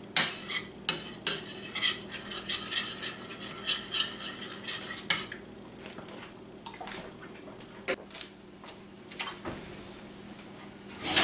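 A utensil stirring and scraping a cream pan sauce in a frying pan, clinking against the pan. The clinks and scrapes come quickly for the first five seconds or so, then give way to a few separate taps.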